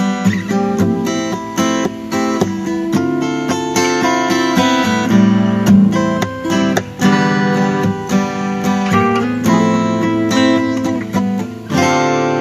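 Two acoustic guitars playing an instrumental passage together, a run of picked and strummed notes. Near the end a full chord is strummed and left to ring, slowly dying away.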